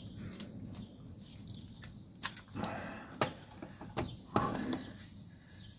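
Starter motor of a Jeep Grand Cherokee WJ diesel being worked free under the vehicle: a few light metal clicks and knocks scattered through, with a couple of short scraping rubs.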